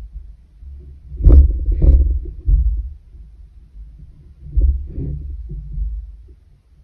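Low thumps and knocks from handling a wooden pin loom on a table while a long weaving needle is worked through the yarn strands, with two sharper clicks a little over a second in and softer knocks near five seconds.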